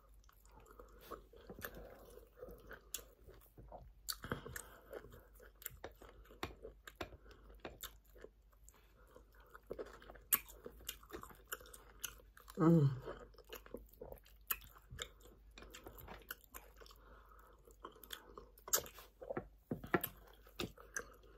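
Close-miked chewing of soft pounded yam and spinach sauce eaten by hand: wet smacking and many small sharp mouth clicks. One brief, louder mouth sound falls in pitch about halfway through.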